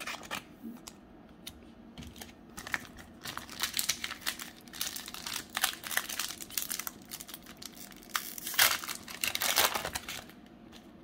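Foil wrapper of a Pokémon TCG booster pack crinkling and tearing as it is handled and opened. The crackles come irregularly and get busier after the first couple of seconds.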